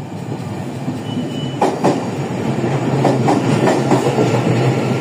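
Taiwan Railway EMU800 electric multiple unit running in alongside the platform: a steady hum from the train, and from about a second and a half in its wheels clack over the rail joints, growing louder as the cars pass. A short high tone sounds about a second in.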